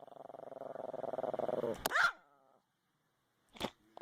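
Chihuahua growling, growing louder for about two seconds and ending in a sharp bark; a single short sharp sound comes near the end.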